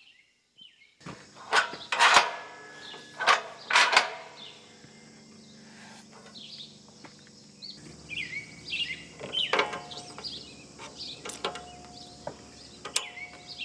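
Loud metal clanks of a tractor loader's skid-steer quick-attach locking levers being flipped shut on a grapple rake, four sharp strikes in quick succession. Later come lighter metallic clicks as hydraulic quick couplers are handled, with birds chirping.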